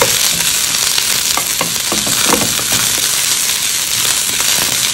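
Sliced onions, capsicum and green chilli sizzling in hot oil in a frying pan, a steady hiss. A wooden spatula scrapes and knocks against the pan now and then as the vegetables are stirred.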